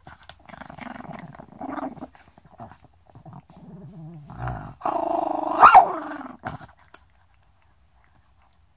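Chihuahua growling over its chew bone, a run of low growls broken by breaths that grows loudest and harshest about five seconds in, then stops about a second later. The growl is the dog guarding its bone.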